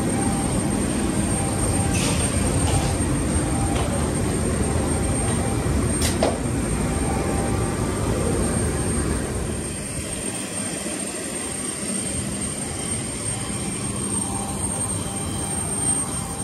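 Jet aircraft noise: a steady high whine over a dense low rumble. A few sharp knocks cut through it, the loudest about six seconds in.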